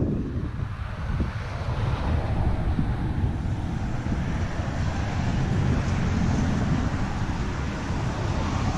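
Wind buffeting the microphone outdoors: a low, uneven rumble.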